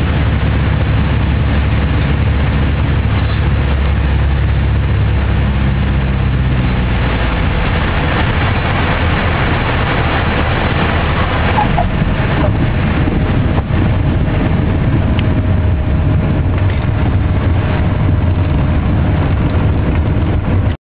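Cabin noise of a Piper PA-23-250 Aztec landing: the drone of its twin piston engines with air rushing past. The engine note drops about seven seconds in as power comes off for touchdown. A rumbling rollout follows, with scattered knocks from the runway.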